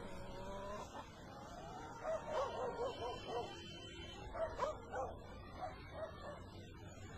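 An animal whining, then yelping in a quick run of short high cries from about two seconds in, thinning out toward the end.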